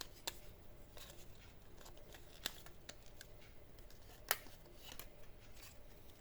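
Scattered sharp clicks and light taps, about five in all, the loudest about four seconds in, over a faint steady hum.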